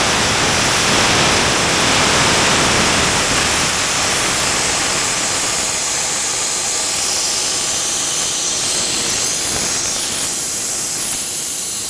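Nitrogen rushing out of an air conditioner's suction line, a loud steady hiss that slowly weakens, blowing oil out of the line.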